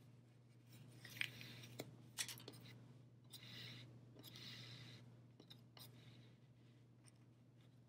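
Faint sounds of hand-weaving: a few light clicks and two soft swishes as yarn is drawn over and under the warp threads of a small loom, over a steady low hum.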